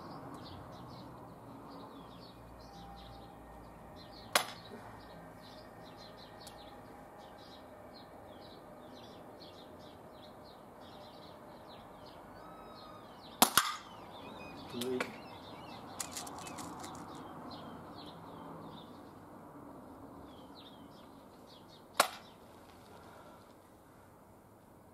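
NTK Buster .22 pneumatic air pistol firing three shots several seconds apart, each a short sharp crack.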